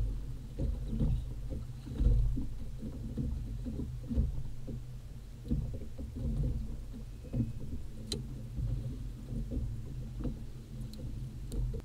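Small waves slapping against the hull of a small fishing boat, with a low, uneven rumble of wind on the microphone and a single sharp click about 8 seconds in.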